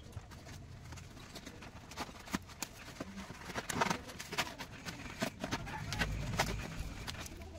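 Taped cardboard shipping box being torn open by hand: flaps pulled back with irregular crackles, rips and knocks of cardboard. A duller, low rumble comes about six seconds in as the box is handled.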